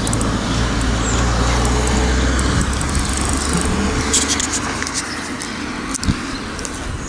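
Street traffic noise: a motor vehicle's engine hum, strongest in the first couple of seconds and then fading away, with a few light clicks about four seconds in.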